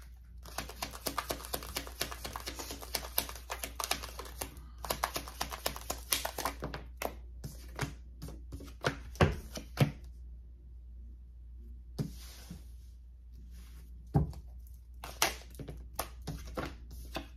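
A deck of tarot cards being shuffled and handled: a dense run of rapid card flicks and rustling for the first several seconds, then sparser snaps and soft knocks as the cards are handled, with a pause of a couple of seconds partway through.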